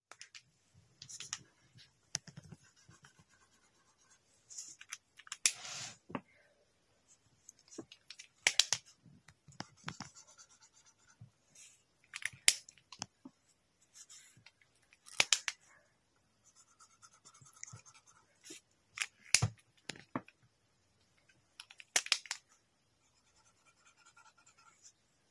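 Chisel tip of a Mobee chalk marker rasping in short strokes across the drawing surface, with sharp clicks every two to four seconds.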